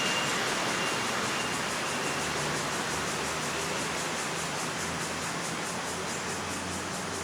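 Steady ambient hiss with a low rumble of distant city traffic, and a faint thin high tone during the first two seconds.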